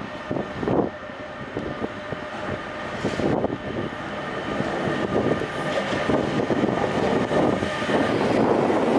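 Bombardier TRAXX class 186 electric locomotive approaching and passing close by, its wheels rumbling and clattering on the rails under a steady whine from its traction equipment, growing louder throughout.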